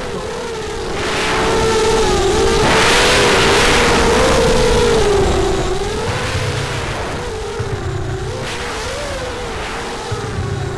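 FPV racing quadcopter's brushless motors whining, heard from the camera on board, the pitch wavering up and down with the throttle. A louder rushing noise joins in from about two seconds in for a few seconds.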